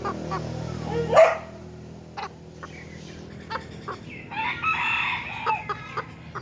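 Bantam chickens calling: a short loud call about a second in, then a longer call of about a second, with several tones, about four and a half seconds in, among light clicks.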